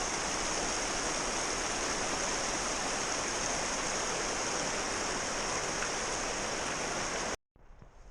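Steady rush of river water flowing, which cuts off abruptly about seven seconds in, leaving a much quieter stretch.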